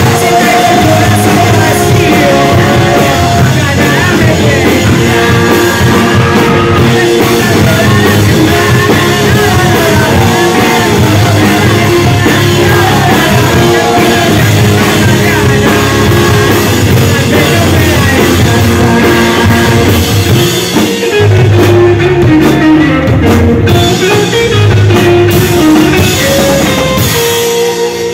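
Live rock band playing: electric bass, electric guitar and drum kit, with a male lead vocal singing over them.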